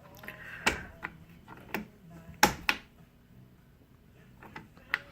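Irregular sharp clicks and knocks, about eight, from the handmade knob and forward-reverse feed lever of a Craftsman 6-inch lathe being worked by hand. The loudest knock comes about halfway through.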